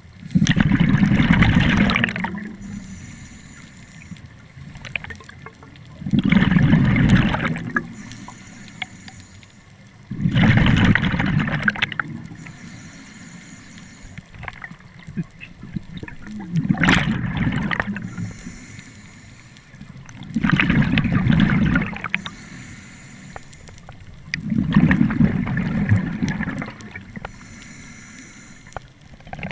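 Scuba diver breathing through a regulator: six bursts of exhaled bubbles about every four to six seconds, each lasting about two seconds, with a faint hiss of the demand valve on each breath in between.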